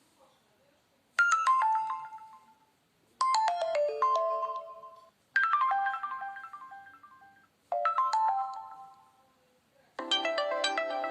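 Preloaded tone on a Nokia Lumia 521 phone: a quick run of falling notes that rings out and comes five times, about two seconds apart. The last run is fuller and lower.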